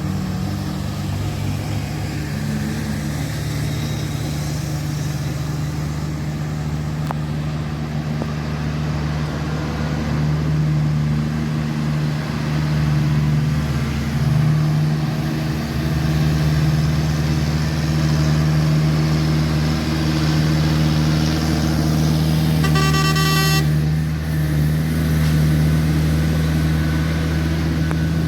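Heavy diesel truck engine running steadily under load on a hill climb, getting somewhat louder about ten seconds in. A vehicle horn sounds once, briefly, about 23 seconds in.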